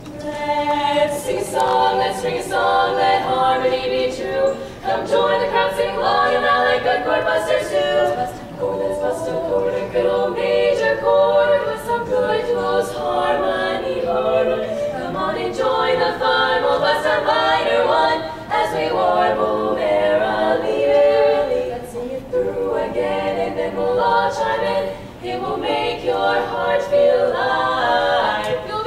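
Women's barbershop quartet singing a cappella in four-part close harmony, starting right at the beginning with a few brief breaths between phrases.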